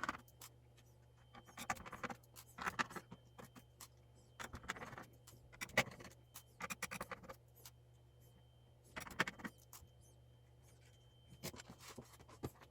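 Screwdriver turning screws out of a mechanical keyboard's plastic case: several short spurts of scratchy clicking and scraping, with pauses between them.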